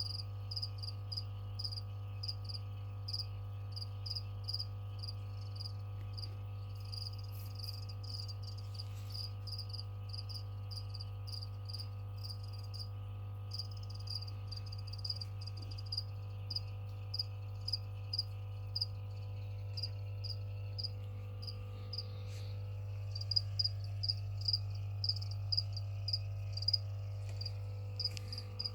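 Feeder cricket chirping, short high chirps repeated two to three times a second, pausing briefly midway and growing louder near the end. A steady low electrical hum runs underneath.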